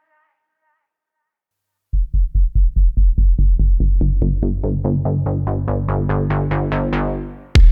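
Electronic music: after about two seconds of silence, a fast, even drum-machine pulse of about five beats a second comes in and grows brighter as it builds. It breaks off near the end into a louder section.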